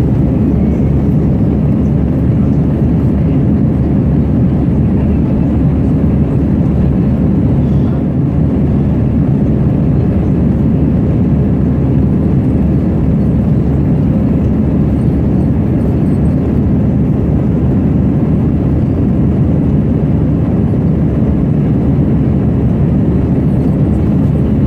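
Steady low rumble of jet engines and rushing air heard inside an airliner's cabin during the climb after take-off.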